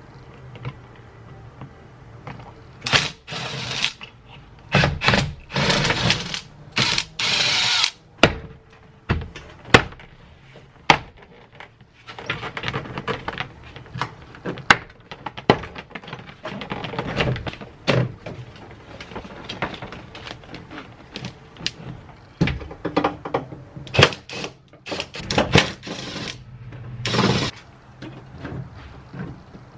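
Irregular clicks, knocks and short scraping or rattling bursts of hand work on a truck door, as the door's lock cylinder and handle hardware are refitted.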